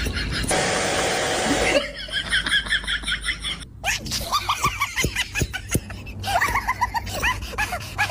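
A brief burst of hiss, then birds calling in quick runs of short repeated chirps, about four a second, some notes falling in pitch, with an abrupt break between runs.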